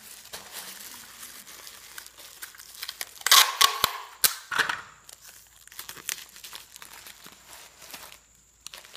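Black plastic bag crinkling and rustling as it is folded and pressed around a parcel, with a louder tearing burst a little over three seconds in and a couple of shorter ones just after, as tape pieces are torn off and stuck on.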